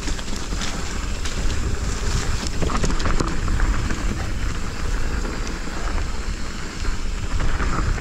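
Mountain bike rolling downhill on loose, dry dirt singletrack: steady wind rush on the action camera's microphone over tyre crunch and scattered clicks and knocks from the bike rattling over the rough surface.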